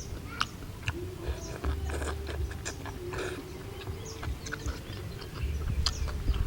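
A person eating noodles, chewing and slurping, with many short wet smacks and clicks.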